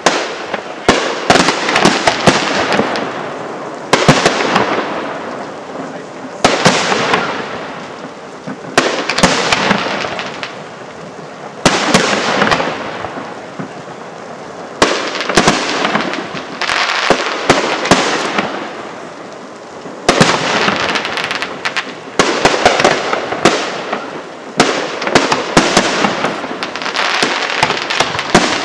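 Aerial firework shells bursting one after another: sharp bangs, each followed by a crackling tail that fades over a second or two. The bursts come faster and overlap near the end.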